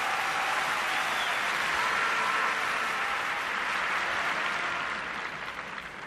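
Large arena crowd applauding steadily, dying down near the end.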